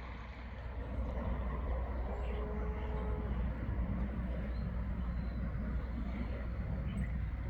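Steady low outdoor rumble with background noise, with a faint humming tone from about two seconds in that lasts just over a second.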